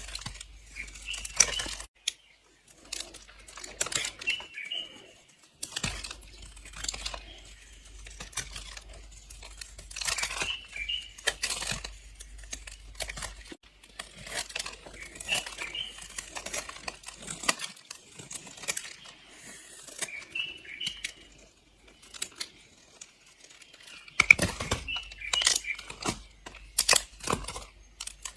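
A knife slicing through bars of soap, with crisp, crunchy crackles as the blade breaks through, in irregular runs of short strokes.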